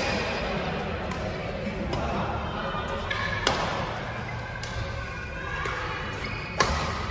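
Badminton rackets striking a shuttlecock during a fast rally, a sharp crack about once a second with echo from the hall; the hardest hit comes near the end. A murmur of voices lies underneath.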